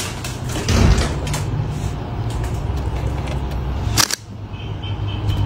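A few sharp camera shutter clicks over a steady low room hum, the loudest click about four seconds in.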